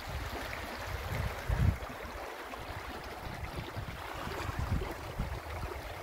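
Shallow mountain stream rippling over pebbles, a steady rushing hiss, with irregular low gusts of wind buffeting the microphone, the strongest about a second and a half in.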